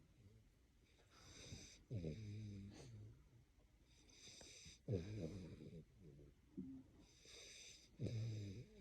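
A boy snoring in his sleep: a slow rhythm of about one breath every three seconds, each a hissing breath followed by a sudden low pitched snore, three times over.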